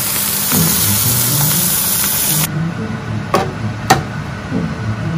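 Soft background music under a bright steady hiss that cuts off suddenly about halfway through, followed by two sharp clicks about half a second apart.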